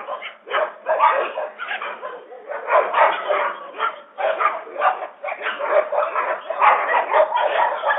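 A pack of street dogs barking rapidly, the barks overlapping with hardly a pause. The sound is thin, with no deep bass and no high treble.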